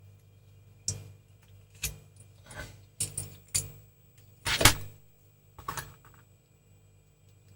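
Resistors and a small metal hand tool being handled on a workbench while the resistors are fitted into a circuit board: a run of sharp clicks and light metallic taps, the loudest about four and a half seconds in, over a faint low hum.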